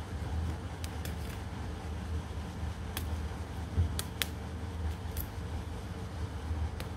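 Handling of an Asus X441B laptop's plastic top case and keyboard: a few sharp small clicks and taps of plastic and metal, with one dull knock about halfway, over a steady low hum.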